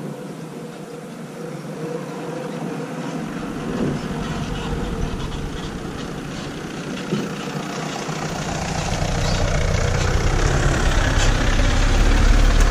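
Engine of a small van towing a trailer approaching and pulling in, growing louder over the last few seconds, with a light clatter near the end.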